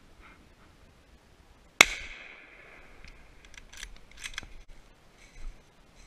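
A single shot from a scoped hunting rifle about two seconds in, a sharp crack that echoes away over about a second. It is followed by several sharp clicks.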